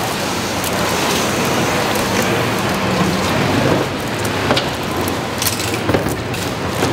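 Wooden fish-cake skewers knocking against a stainless-steel eomuk broth tray as they are sorted, a few sharp clicks over a steady hiss.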